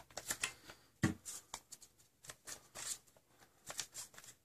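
Small plastic clicks and rustles of foam half darts being handled and pushed into a Nerf blaster's inline clip, with a sharper knock about a second in. The loading is fiddly; he puts this down to the restrictor peg he left in the clip.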